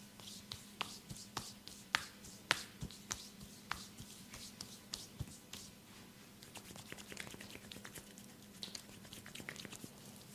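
Hands massaging a person's head and neck: an irregular run of sharp clicks, snaps and slaps, the loudest two about two seconds in, easing off briefly past the middle and picking up again.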